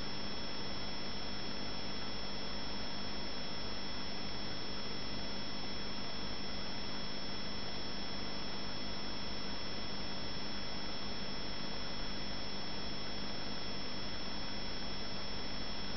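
Home aquarium running: a steady hiss of air bubbles rising through the tank water, with a steady hum underneath.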